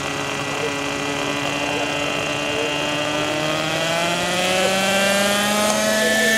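Hirobo JetRanger radio-controlled model helicopter's small glow engine running with its rotor turning on the ground. The engine note holds steady, then from about halfway through rises gradually in pitch and gets a little louder as the rotor spins up.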